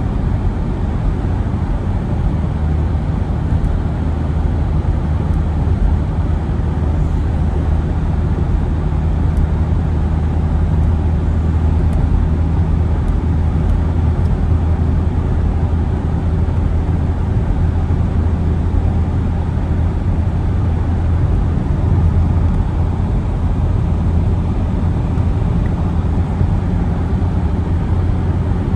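A motor running at a steady speed: a constant low hum over a rumbling noise.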